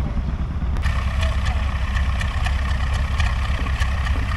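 Antique farm tractor engine running steadily as it pulls a weight sled down a dirt pulling track.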